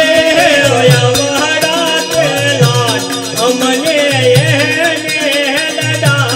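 Devotional folk music of a Ramamandal troupe: a wavering melody over a low drum beat about once a second and bright jingling percussion.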